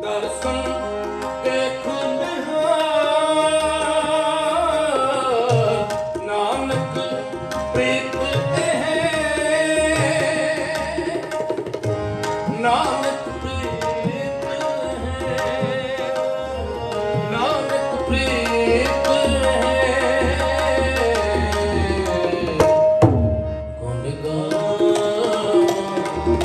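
Sikh kirtan: harmonium melody over a steady drone with tabla accompaniment, and a man's voice singing along.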